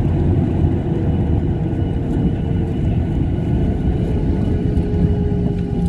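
Cabin noise inside a Boeing 737 rolling along the runway after touchdown: a steady low rumble of engines and wheels, with a faint engine whine.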